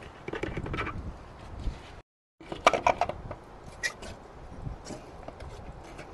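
Wind rumbling on the microphone, a brief dropout about two seconds in, then a cluster of sharp knocks and clatter from handling around the grills or the camera.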